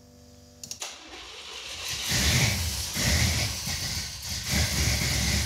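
A couple of clicks, then the Chevrolet 454 big-block V8, newly converted to Holley Sniper EFI 2 throttle-body fuel injection, cranks and fires on its first start with the injection, coming up to a loud running rumble about two seconds in.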